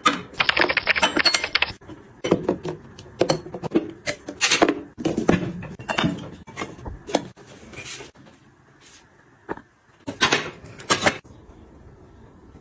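Glass and plastic cosmetic bottles and jars being picked up and set down on a tray: a run of light clinks and taps at irregular spacing, with a brief rattle at the start.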